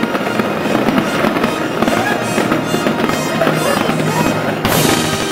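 Fireworks bursting and crackling continuously, with music playing underneath, and one sharp, louder burst near the end.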